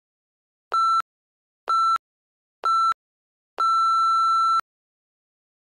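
Workout interval timer counting down: three short beeps a second apart, then one longer beep of about a second at the same pitch, signalling the end of the work interval.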